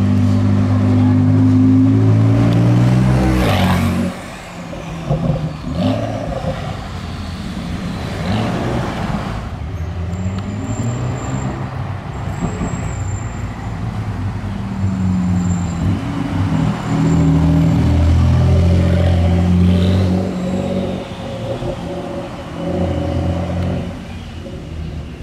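Gemballa Marsien's twin-turbocharged flat-six, a 911 Turbo S engine, running as the car drives slowly by. It is loud for the first four seconds, drops away, and swells again past the middle before easing off.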